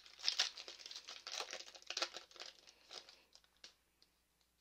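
Foil booster-pack wrapper crinkling and tearing as it is opened by hand, with a quick crackle of handling that stops about three and a half seconds in.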